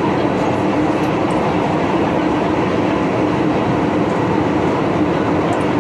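MTR Tsuen Wan Line M-Train running steadily through a tunnel, heard from inside the carriage: an even rumble of wheels and running gear with a steady hum.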